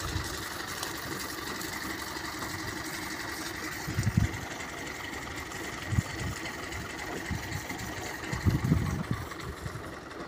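Tractor engine running steadily, with a few dull low thumps, the loudest near the end.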